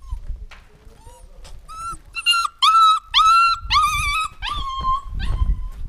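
Young goat kid bleating in a run of about six high, wavering calls, the last one longer and trailing off.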